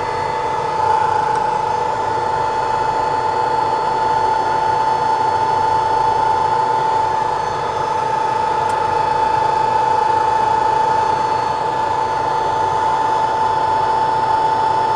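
BGA rework station running through its heating cycle: a steady whir of its hot-air heater blowers with a steady whining tone over it, while the lead-free solder under the PCH chip is brought up to melting.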